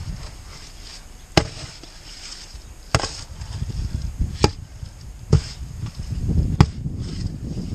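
Steel spade chopping down into wet clay beside a plastic drain pit: five sharp strikes about a second and a half apart, cutting the soil to break its suction hold on the pit.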